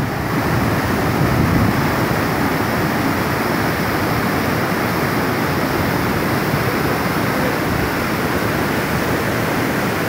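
Tall waterfall plunging onto rocks, heard from close to its foot: a steady, loud rush of falling water and spray.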